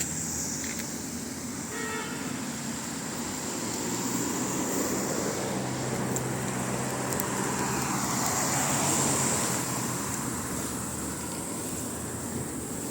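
A car passing by: road noise that swells to a peak about two-thirds of the way through and then fades.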